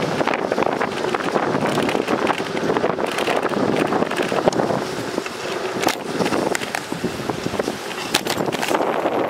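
Wind buffeting the microphone of a camera riding on a moving bicycle, over the hiss of tyres rolling on pavement, with frequent small rattles and clicks.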